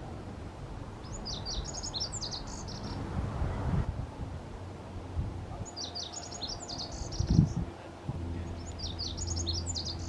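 Male lazuli bunting singing three songs a few seconds apart, each a quick jumbled run of high notes lasting about two seconds, over a steady low rumble. A brief low thump comes about seven seconds in.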